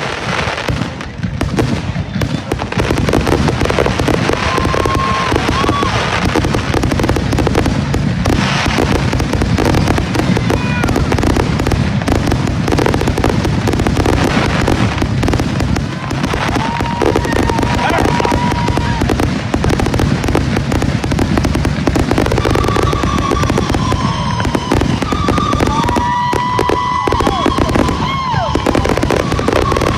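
Fireworks going off in a dense, continuous barrage of bangs and crackling, with long whistling tones several times, most of them in the last third.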